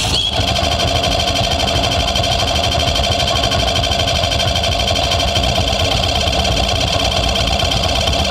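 Granular-synthesis loop built from a woman's voice: a loud held tone chopped into a rapid stuttering flutter, over a heavy low rumble. It cuts in abruptly and holds steady.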